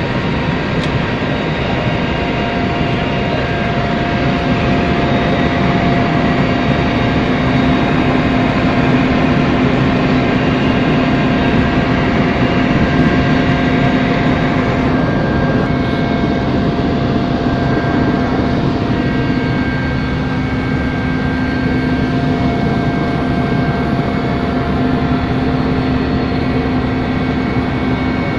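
Helicopter in flight, heard from inside the cabin: a steady, loud rush of engine and rotor noise with a constant hum.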